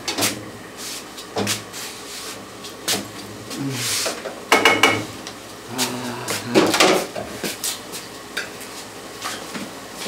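Kitchen clatter of pots, pans and utensils: scattered knocks and clinks, with a short hiss about four seconds in and a brief ringing metal clink just after it.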